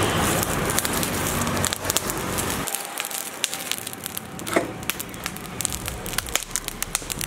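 Lump charcoal crackling and popping with many sharp little snaps as freshly added pieces catch on glowing embers in a grill pit.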